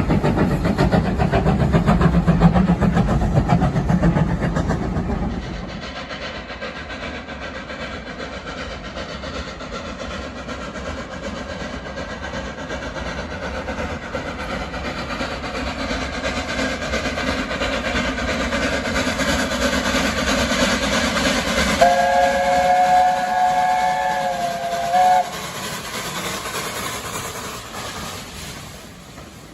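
Steam train running on the line, loud and rumbling for the first five seconds, then quieter and slowly building. About 22 seconds in, a steam whistle sounds several notes together for about three seconds and cuts off sharply.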